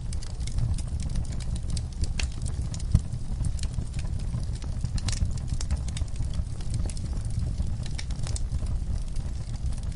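Crackling wood fire: irregular sharp pops and snaps over a steady low rumble, with one louder pop about three seconds in.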